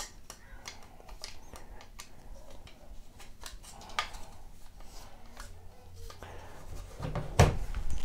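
Light plastic clicks and handling noises as a Western Digital Blue 4TB hard drive is pressed into a screwless plastic mounting bracket, the bracket's plastic pins snapping into the drive's screw holes. A sharper click comes about four seconds in, and a dull thump near the end.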